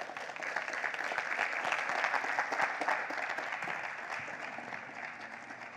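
Audience applauding, swelling over the first two seconds and then slowly dying away.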